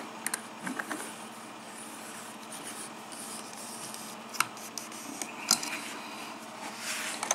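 Hands handling a pin-tumbler lock cylinder and fitting it into a small vise: faint rubbing and scraping with a few sharp clicks, the loudest a little after halfway.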